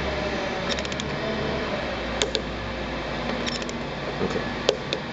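Torque wrench ratcheting on a bolt: short quick runs of about four clicks, with a few louder single clicks between them, over a steady background hum.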